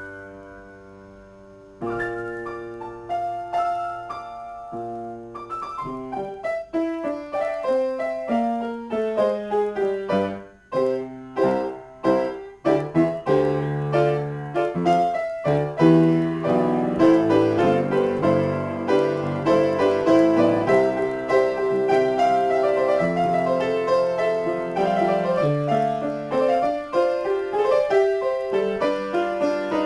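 Upright piano played as a free improvisation. A held chord fades away, fresh chords start about two seconds in, and the playing grows denser and louder from about halfway.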